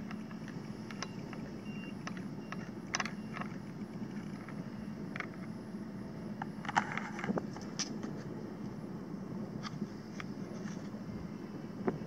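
Faint, steady drone of an electric radio-control model plane's motor and 13x8 propeller in flight overhead, with a few short light clicks scattered through it.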